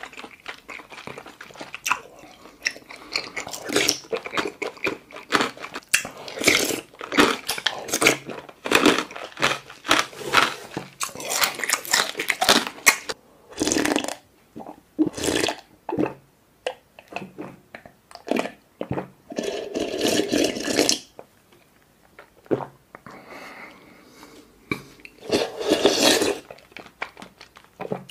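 Close-miked mouth sounds of eating tapioca-pearl bubble tea. There is wet chewing and many quick lip smacks for the first half, then several long slurps, each a second or two, drunk straight from a bowl of milk tea with pauses between.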